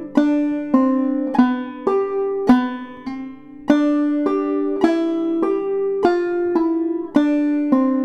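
Five-string banjo played clawhammer style: an old-time fiddle-tune melody at a slow, even practice tempo, about two plucked notes a second, each ringing on.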